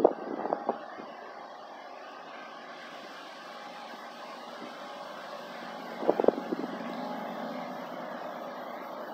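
Distant approaching freight train: a steady rumble and hiss that grows slowly louder, with a few short knocks near the start and again about six seconds in.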